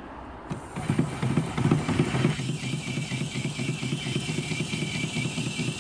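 Small twin-cylinder vertical steam engine starting about half a second in and running with a fast pulsing exhaust and a steady steam hiss, on only about 30 pounds of boiler pressure, which is not really enough.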